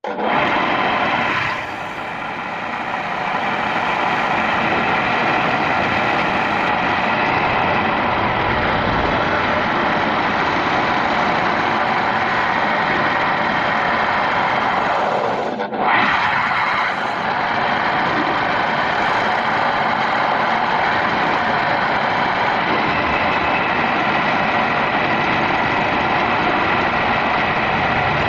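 A homemade wood lathe runs steadily with a wooden bowl spinning on it, while a handful of wood shavings is held against the turning bowl to burnish it to a shine. The sound dips briefly a little past halfway and then runs on steadily.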